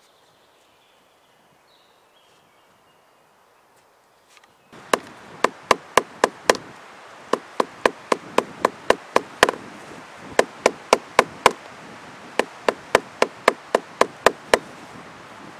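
Runs of sharp clicks, about four a second, starting about five seconds in, over a soft scraping hiss, as a spruce root is pulled in short tugs through a split stick to strip off its bark.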